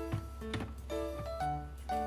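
Background music: a light melody of short notes stepping up and down.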